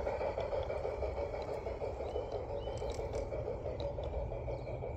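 G-scale model train coaches rolling along the garden railway track close by: a steady rumble of wheels on rails that slowly eases as the cars pass.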